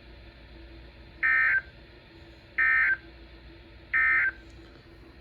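Three short bursts of Emergency Alert System end-of-message data tones (the SAME digital screech), evenly spaced about a second and a half apart, signalling the end of the alert.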